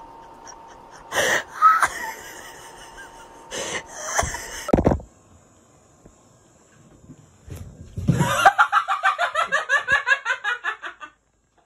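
A person laughing hard, a fast rhythmic run of 'ha-ha-ha' lasting about three seconds, starting about eight seconds in. A few short loud bursts come before it.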